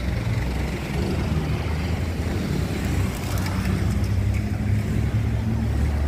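Street traffic: vehicle engines running with a steady low rumble.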